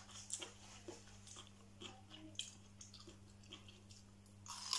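Close-up chewing with small wet clicks, then a louder crisp crunch near the end as a piece of fresh cucumber is bitten.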